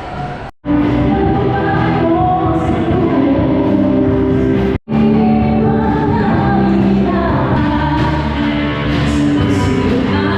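Music with singing, loud and steady, broken by two sudden brief dropouts to silence, about half a second in and just before five seconds in.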